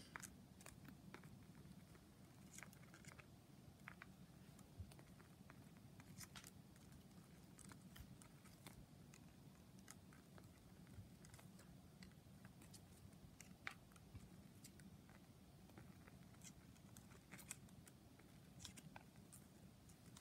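Near silence with faint, irregular small clicks and taps: a budgerigar's beak pecking at and nudging a small paper card on a tatami mat.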